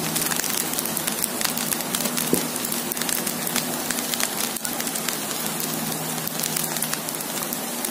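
Fried rice sizzling and crackling steadily in a hot wok, the oil and freshly added soy sauce spitting against the hot pan.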